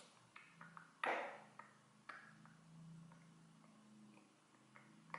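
Faint, scattered small clicks and taps, with one brief breathy rustle about a second in, over a low steady hum.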